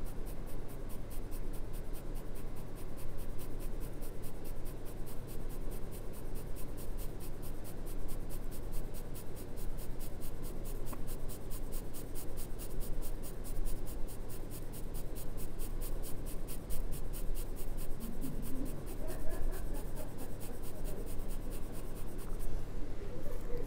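HB graphite pencil shading on drawing paper: steady, rapid back-and-forth scratching of short strokes, over a low steady hum.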